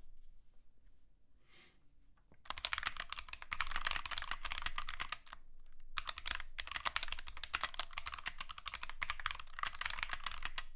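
Fast typing on a mechanical keyboard: dense runs of key clicks that start about two and a half seconds in, pause briefly in the middle, then carry on.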